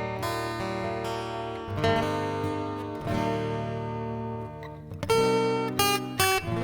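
Background music led by strummed acoustic guitar, with chords ringing on. Near the end come a few quick, short plucked notes.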